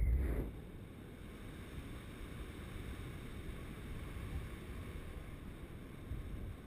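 Wind rushing over the camera's microphone in paraglider flight. A heavy low rumble drops about half a second in to a softer, steady rush.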